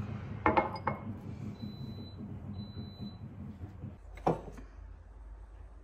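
A glass tumbler set down on a stone countertop: a few quick knocks of glass on stone about half a second in. A little after four seconds, a single clink of a ceramic mug lifted from a shelf.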